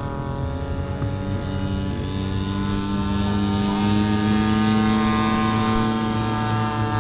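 Radio-controlled model airplane engine and propeller running steadily, swelling slightly louder and higher in pitch about halfway through, then easing.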